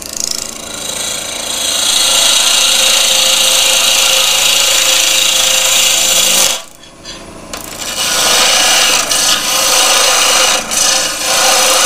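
A turning tool cutting a spinning laburnum blank on a wood lathe, giving a loud steady hiss of shavings coming off the wood. The cut breaks off for about a second just past halfway, then resumes.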